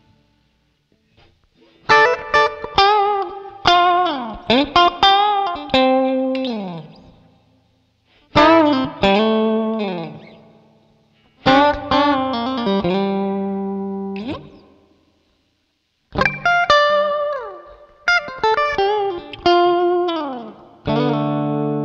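Clean electric guitar through a Joyo American Sound amp-simulator pedal on its Fender Twin-style clean voicing, recorded direct with added reverb. It plays short single-note phrases with bent and sliding notes, each left to ring out between short pauses, and ends on a held chord.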